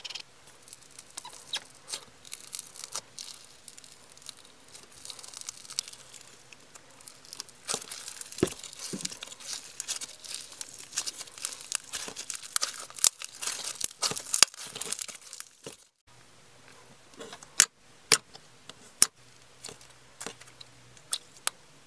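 Slime being pressed and stretched by hand: a clear slime with iridescent flakes crackles and crinkles almost without pause, then after a short break a thick white slime gives a scatter of separate sharp pops and clicks.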